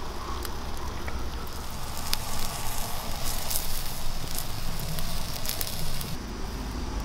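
Garlic and chili sauce sizzling and bubbling in an abalone shell set over an open wood fire, with sharp crackling pops from the fire.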